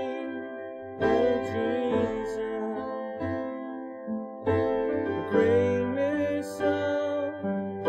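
Slow instrumental music on keyboard: held chords that fade, with new chords struck about a second in and again about halfway through.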